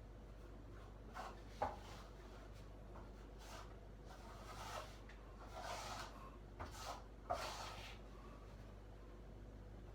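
Scattered scraping strokes of a filling knife working joint filler, with two sharp clicks, about one and a half seconds in and about seven seconds in, over a steady low electrical hum.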